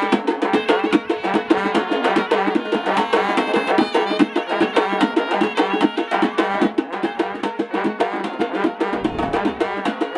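A karnay and drum street ensemble playing: long brass karnay horns sound held notes over a fast, steady beat on cylindrical drums.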